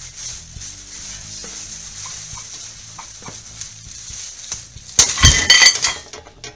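Plastic grocery bags rustling and crinkling as they are loaded with weights. About five seconds in comes a loud crash with metallic clanking and ringing, lasting about a second: the middle hook of the 3D-printed PLA+ test piece has broken under the load, and the bags of metal weights and the hanging scale drop.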